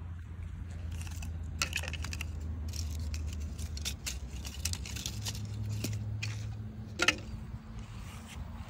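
Light clicks and rattles of blown-apart phone and case pieces being handled, over a low steady rumble, with a sharper click about seven seconds in.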